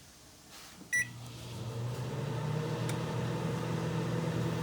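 A GE Spacemaker over-the-range microwave beeps once as Express Cook is pressed, about a second in. It then starts running with a steady electrical hum.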